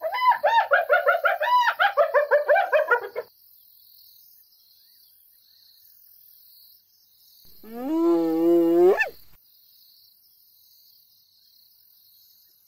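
Spotted hyena calling: a fast run of short yelps, each rising and falling in pitch, for about three seconds. Then, past the middle, one long call that rises in pitch and holds, about a second and a half long. Faint insects chirr throughout.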